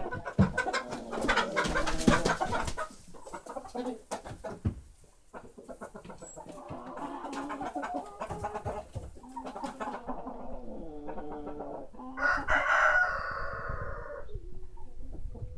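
Free-range chickens clucking, with many sharp taps in the first few seconds, and one loud drawn-out call like a rooster crowing about twelve seconds in.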